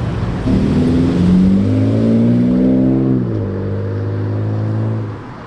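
A car engine rising in pitch for about two and a half seconds, then dropping sharply about three seconds in and running steady at a lower pitch before fading near the end.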